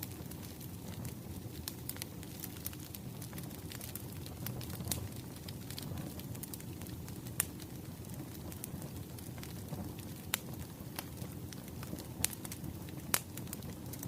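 Wood fire crackling: a steady low rumble of burning logs with irregular sharp snaps and pops, a few louder pops in the second half.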